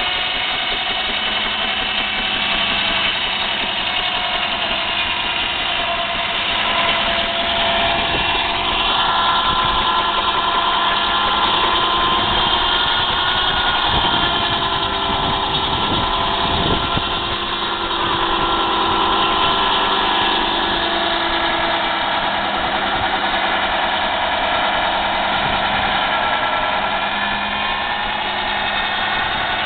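Machinery running steadily: an engine-like drone with many high tones, a little louder and shifting in pitch from about 8 to 18 seconds in, with a few knocks in the middle of that stretch.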